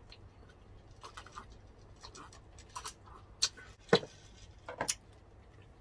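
Sips of juice, then scattered small clicks and taps of drinking glasses and tableware handled on a table. The loudest is a sharp knock about four seconds in.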